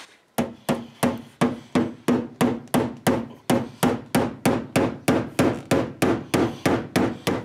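Hammer pounding the steel fender lip inside a Fiat X1/9's front wheel arch in a steady run of about four blows a second, each with a short ring of sheet metal. The lip is being beaten flat to give a larger 15-inch tyre clearance.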